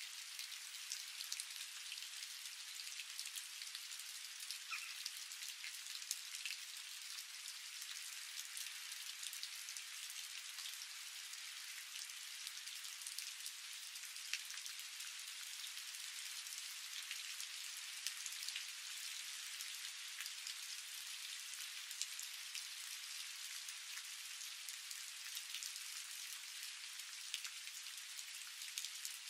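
A steady, rain-like hiss with faint ticks scattered through it.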